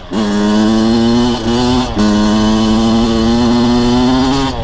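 Freshly rebuilt Kawasaki KX100 two-stroke single revving up and held at steady high revs during a break-in heat cycle, with a brief drop about two seconds in.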